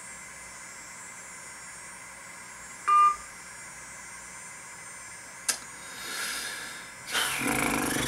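Smartphone call on speakerphone: faint line hiss, one short high beep about three seconds in, then a click and a rush of noise near the end.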